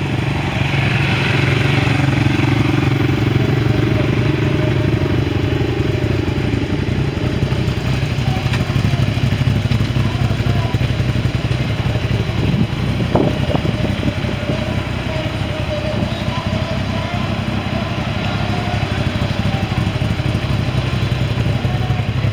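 Race car engines idling in the autocross pre-grid, a steady low drone that runs unbroken.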